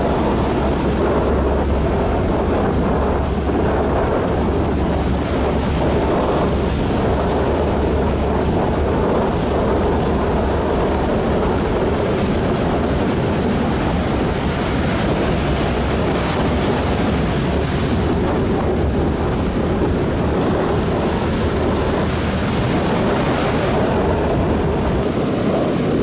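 Heavy, rough surf breaking and rushing over a rock seawall, a continuous loud wash of churning water, with strong wind buffeting the microphone in a low rumble that comes and goes.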